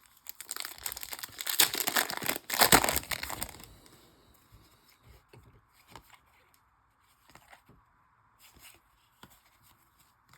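A baseball card pack's foil wrapper being torn open and crinkled for about the first three and a half seconds, followed by scattered soft clicks and taps of the cards being handled.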